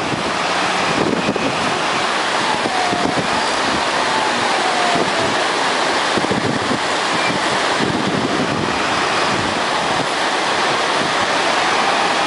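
Fast mountain river rushing steadily, with wind buffeting the microphone. Underneath, a wheel loader's engine works faintly, its pitch rising and falling as it pushes avalanche snow.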